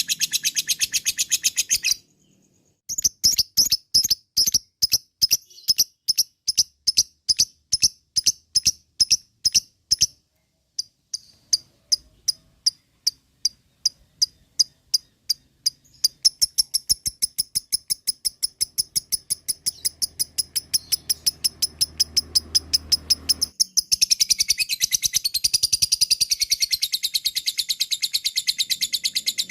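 Lovebird 'ngekek': a long run of sharp, high, rapidly repeated notes, broken twice by short pauses in the first half. The notes come faster past the middle and run together into a dense continuous chatter near the end.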